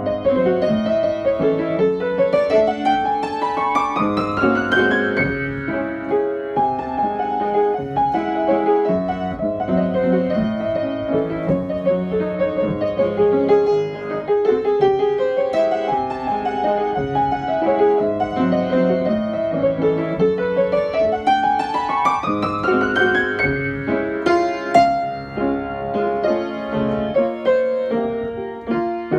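Piano music, with two quick rising runs up the keyboard: one a few seconds in, one about two-thirds of the way through.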